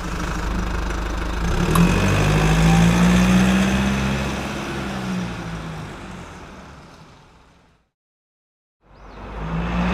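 An engine revving up and settling back, fading out to a moment of silence about eight seconds in. The engine comes back running just before the end.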